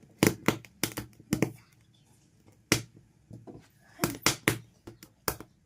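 A series of sharp, irregular taps and clicks, about ten in all, some in quick runs of two or three, with a short lull between.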